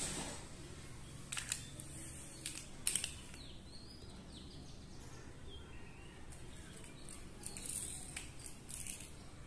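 A few sharp clicks and taps of a small plastic toy vehicle being handled and pushed on a hard tiled floor, over a quiet steady background, with faint bird chirps a few seconds in.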